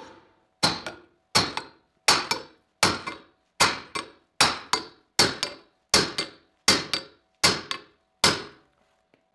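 Steel hammer blows on a steel angle-iron clip welded to a pipe held in a vise, a clip test beating the clip toward the weld to test its toughness. Eleven evenly spaced strikes, about one every three-quarters of a second, each a sharp metallic clang with a short ring, stopping about a second before the end.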